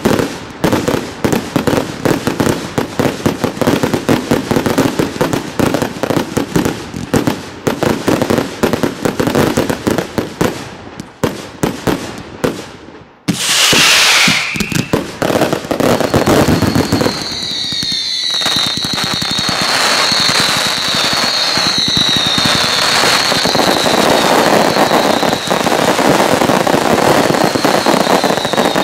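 Daytime consumer fireworks: a rapid run of salute bangs and crackling for the first dozen seconds, thinning out. Around thirteen seconds in, a loud rushing burst with a falling whistle sets off a chorus of shrill whistles over a steady crackle that lasts to the end.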